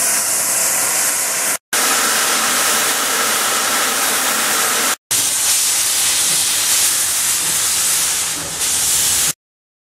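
Loud steam hissing from steam locomotives' open cylinder drain cocks, in three cut-together shots with brief breaks about one and a half and five seconds in; it stops abruptly near the end.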